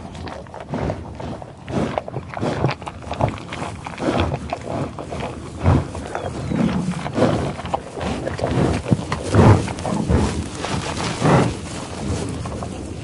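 A buffalo in tall grass sniffing and feeding: irregular heavy breaths and sniffs mixed with rustling and tearing of grass, with a few louder breaths spread through.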